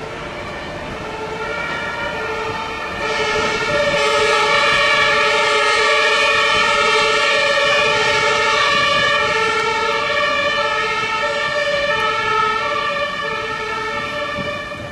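Two-tone Martinshorn siren of a German fire engine, switching back and forth between a lower and a higher note. It grows louder about three seconds in and fades near the end.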